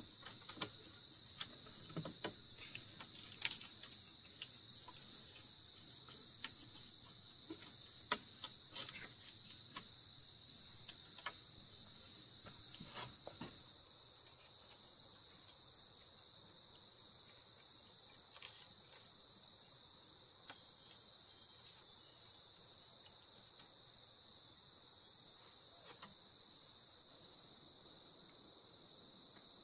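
Insects chirring steadily at one high pitch, with scattered sharp clicks and knocks during the first half.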